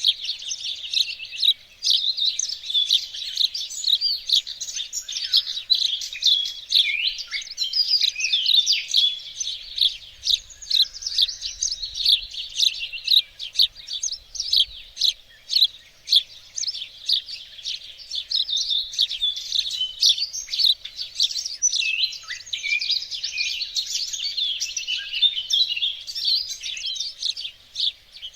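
Birds singing and chirping continuously, several songs overlapping in a busy chorus of quick high notes and trills.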